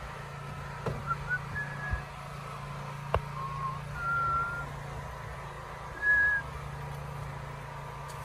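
A steady low hum, with a few short, high whistled notes at irregular intervals and one sharp click about three seconds in.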